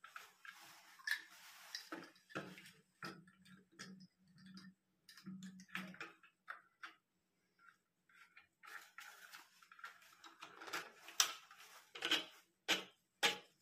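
Plastic ballcock float-valve parts being handled and fitted together by hand: a scatter of light clicks and taps of plastic on plastic, the sharpest ones coming close together near the end.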